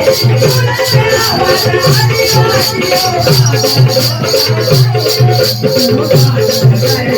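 Adivasi folk dance music with a steady low drum beat, fast even high-pitched shaker-like ticking, and a wavering melody line over it.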